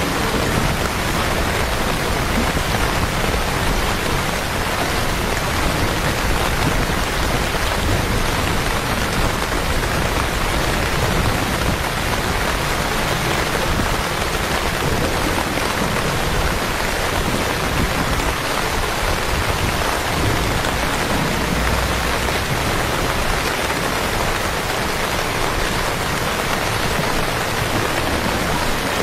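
Steady heavy rain falling on wet streets, an even, unbroken hiss that neither builds nor fades.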